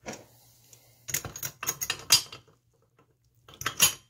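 Clicks and light metal clatter as a piston on its connecting rod is handled and fitted onto the crank of a cutaway two-stroke engine, in a few short clusters, the loudest about two seconds in and near the end, over a faint low hum.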